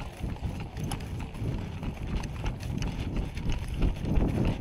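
Footsteps of a person walking through tall grass, with irregular soft thuds about every half second and the grass brushing and rustling around the legs.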